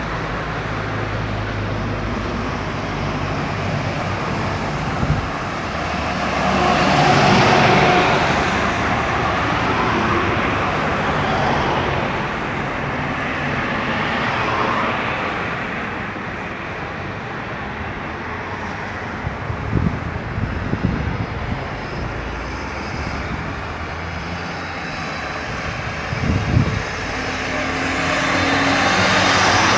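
Steady road traffic on a highway, with cars passing by; the noise swells as vehicles go past close about a third of the way in and again near the end. A few short thumps come in the second half.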